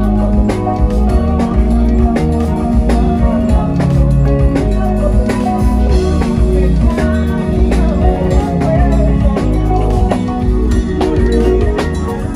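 A band playing music, with guitar, bass notes and a drum kit keeping a steady beat.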